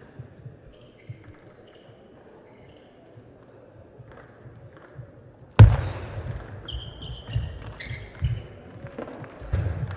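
Table tennis rally: the hard ball clicking repeatedly off rackets and table, with shoes squeaking on the court floor. A single loud thump starts it about halfway in, after a few quiet seconds with only faint ticks.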